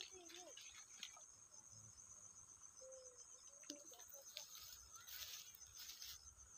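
Faint, steady high-pitched trilling of insects, a continuous fine pulsing. A few soft brushing and rustling sounds come in the second half, as of legs pushing through leafy plants.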